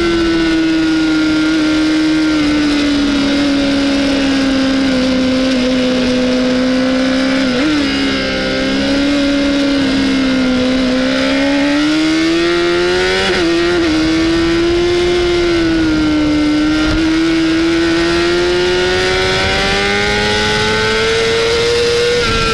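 Honda CBR600RR's inline-four engine running hard at high revs on track, its note sagging and climbing through the corners, with two brief dips in pitch about 8 and 13 seconds in. Wind rushing past the bike underneath.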